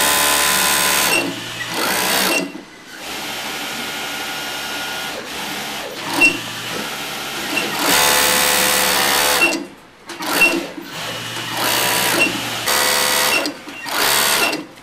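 Racing MC S6C sewing machine running in repeated spurts: loud runs of a second or two at full speed, broken by short stops and a stretch of slower, quieter running in the middle.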